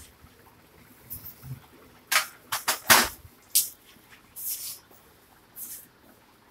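Peacock's feathers rustling as hands handle and part them: a run of short, sharp rustles about two seconds in, then a few single ones.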